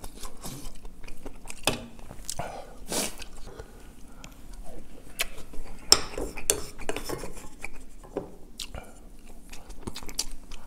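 Wooden spoon scraping and knocking against a stainless steel bowl and a black rice bowl as broth is scooped and mixed into rice, in many short irregular clinks and scrapes, with close-up chewing.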